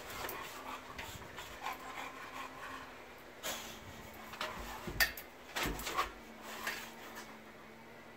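A dog moving about, with scattered short knocks and rubbing sounds, the loudest about five and six seconds in.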